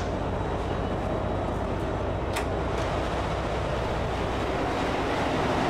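Steady, dense mechanical racket of a fishing vessel's engine-room machinery, with a brief click about two seconds in.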